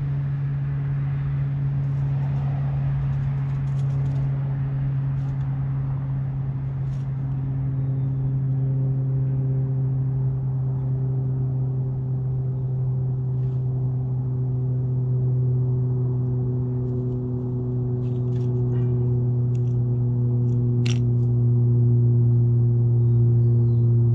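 A steady low drone with several held tones above it that move to new pitches every few seconds, growing a little louder toward the end, with faint scattered high clicks and chirps.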